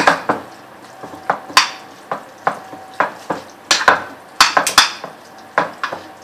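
Two metal spoons clinking and scraping against a glass dish while mixing a crumbled spinach omelette. The clinks are irregular, with a quick run of them about four seconds in.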